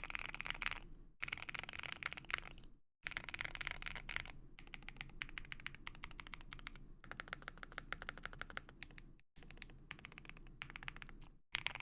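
Typing on a Thera75 V2 aluminium mechanical keyboard with Gateron Smoothie Silver linear switches on a PC plate, fully foamed: fast, dense keystroke clacks in continuous runs, broken by a few brief sudden silences.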